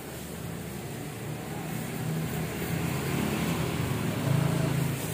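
Motorbike traffic going by, a steady engine drone with road noise that grows louder through the middle and is strongest near the end.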